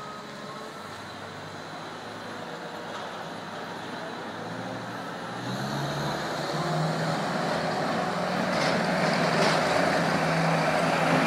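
Diesel engine of a compact tracked loader running and drawing nearer, growing steadily louder over the second half, with a couple of sharp clicks near the end.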